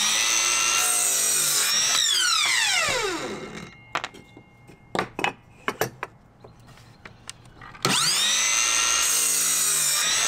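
Ryobi 18V cordless miter saw running and cutting a wooden 2x2, its blade whine falling away as it winds down about two seconds in. A few knocks follow as the wood is set against the fence, then the saw spins up again with a rising whine for the next cut near the end.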